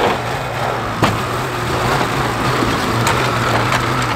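Polaris snowmobile's two-stroke engine running steadily, with one sharp click about a second in.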